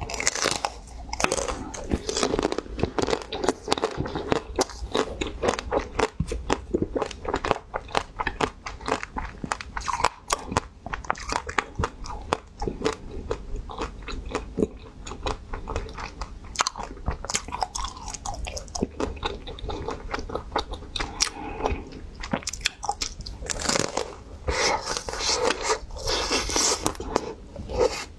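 Biting into a frozen ice cream bar with a hard mint-green coating: the shell cracks and crunches in many sharp crackles, mixed with chewing.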